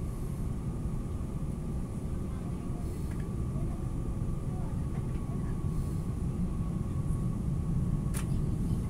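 CRRC diesel multiple unit running at speed, heard from inside the passenger cabin: a steady low rumble with a faint steady whine. It grows a little louder as the train crosses a steel truss bridge, and there is one sharp click near the end.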